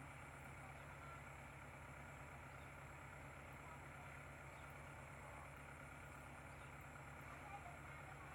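Faint, steady low hum of an engine running, with no change throughout.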